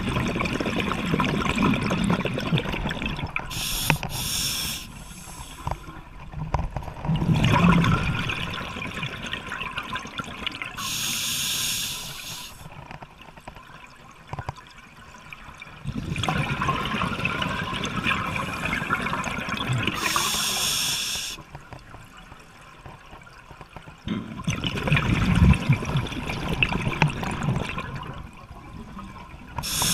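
Scuba diver breathing through a regulator underwater: a short, high hiss on each inhale and a longer stretch of bubbling on each exhale, in a slow, regular cycle of about one breath every eight or nine seconds.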